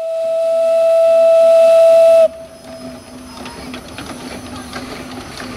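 Whistle of a small 1909 0-6-0 well-tank narrow-gauge steam locomotive, blown in one long steady note that swells louder and cuts off abruptly about two seconds in, dipping slightly in pitch as it stops. Softer steam hissing with light clicks and knocks follows.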